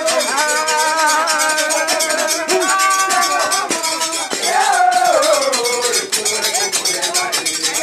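Several voices singing together over a quick, steady beat of rattling, clinking percussion like bells or shakers.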